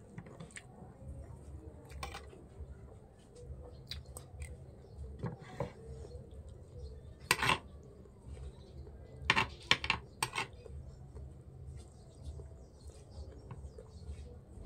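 Metal spoon and fork clinking and scraping on a plate while eating, with a few sharp clinks about seven seconds in and three more between nine and ten and a half seconds; soft chewing between.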